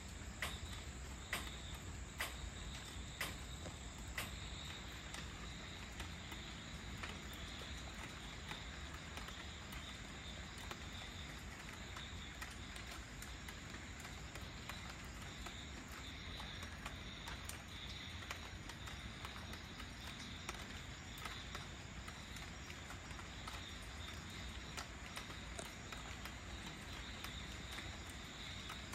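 Steady light rain falling, with insects chirping in a high, pulsing band over it. A few sharp drips in the first few seconds.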